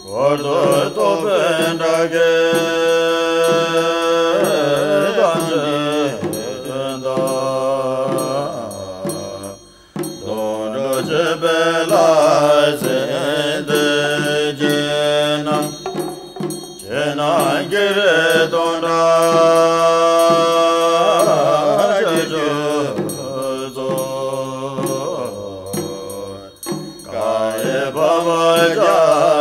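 Melodic chanting of a Buddhist mantra, sung in long phrases that pause briefly every seven to ten seconds.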